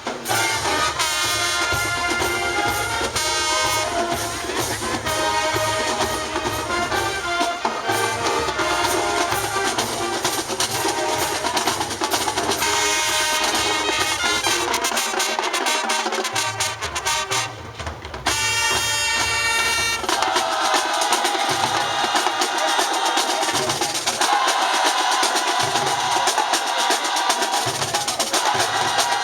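High school marching band playing: a brass section over a drumline of snares and bass drums. About two-thirds of the way through the music dips briefly, and then the horns hold long notes over the drums.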